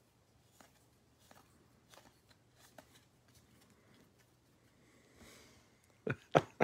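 Paper trading cards being flipped one by one through a hand-held stack, with faint, irregular soft clicks as each card slides off the next. Near the end come two sharp knocks close together, louder than anything else.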